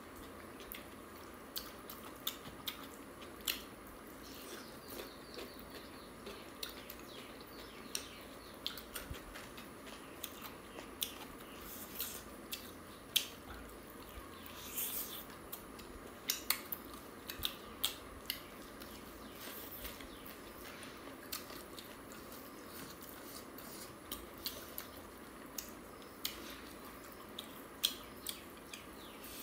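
Close-up eating sounds of people chewing and biting into chicken curry and rice eaten by hand, with many short, sharp clicks and smacks scattered throughout.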